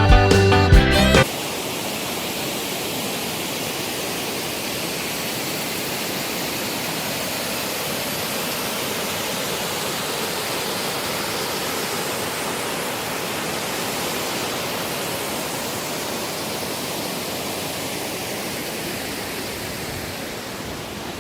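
Background music cuts off about a second in, giving way to the steady rushing of a waterfall.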